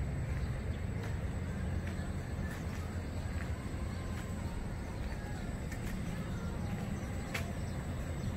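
A steady low rumble of background noise, with a faint click near the end.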